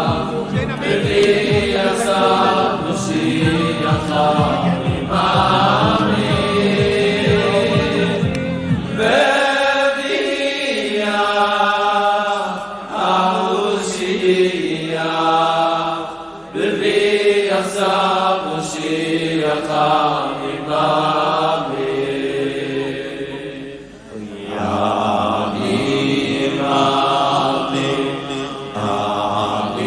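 Festive chanted singing of a melody, with a steady low beat under it for about the first nine seconds, after which the voices go on without it.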